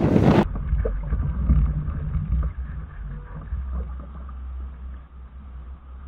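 Wind and choppy water rumbling low against a small robot sailboat's hull, heard muffled through a camera mounted on its deck, fading slowly. About half a second in, it cuts in after a loud blast of wind on the shore microphone.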